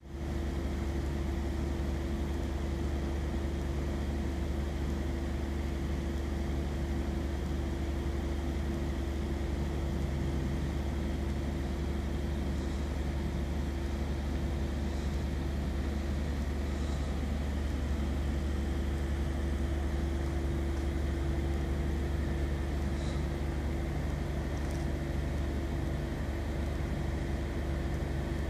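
Freight train cars rolling slowly past: a steady low rumble with a constant hum, and a few faint short high squeaks in the middle.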